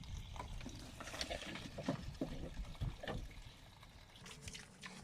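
Pigs rooting and moving about in the dirt of their pen: scattered irregular soft clicks and short noises, fairly quiet.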